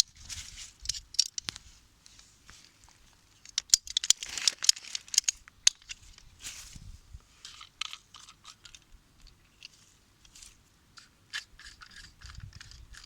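Plastic pipe cutter snipping and crunching through 20 mm polyethylene water pipe: a run of sharp clicks, a dense burst of cutting about four seconds in, then scattered clicks of plastic parts being handled.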